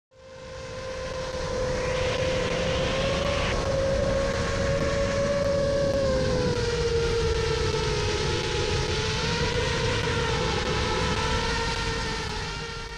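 FPV quadcopter's electric motors and propellers whining steadily, with the pitch drifting gently as the throttle changes, over a rushing noise. It fades in at the start and drops away near the end.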